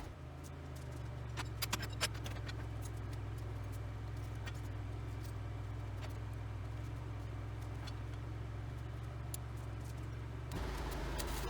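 An engine running steadily at idle with a low hum, and a few light clicks about one and a half to two seconds in; the engine note shifts near the end.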